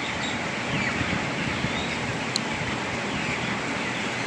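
A large flock of 29-day-old broiler chickens in a poultry shed: a steady din of many soft peeps and chirps over a constant rushing noise.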